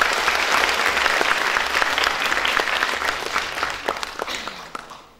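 Audience applause: many people clapping steadily, dying away near the end.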